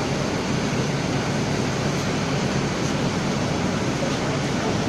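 Chevron belt conveyor stacker running, a steady even noise with no separate knocks.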